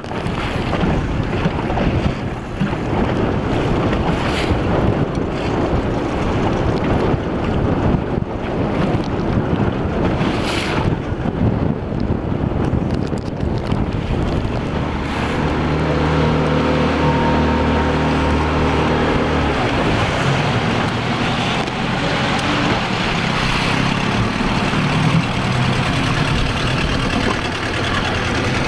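Wind buffeting the microphone over choppy water, aboard a boat. About halfway through, a boat engine's steady low hum comes in for several seconds, then goes on fainter and wavering under the wind.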